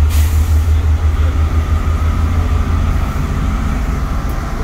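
Lower-deck cabin of a Volvo Ailsa double-decker bus on the move: a steady low diesel engine rumble with road noise. A short hiss comes right at the start, and a faint whine joins about a second in.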